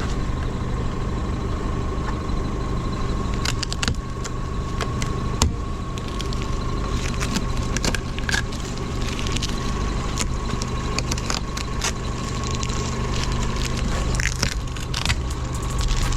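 A car engine idling steadily, with scattered light clicks and rattles over it.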